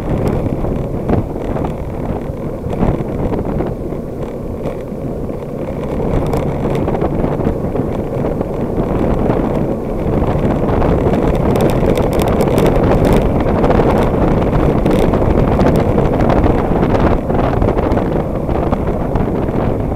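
Wind buffeting the microphone of a handlebar-mounted camera on a moving bicycle, over a steady rumble of tyres on the road. It gets louder about halfway through, and a few light clicks come soon after.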